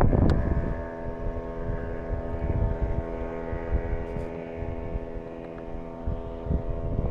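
An engine running steadily at an even pitch. Wind buffets the microphone at the start and drops away within the first second.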